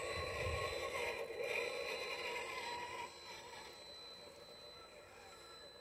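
Electric motor and gear drive of a scale RC crawler truck whining, the pitch wavering as the throttle changes; it drops off about three seconds in.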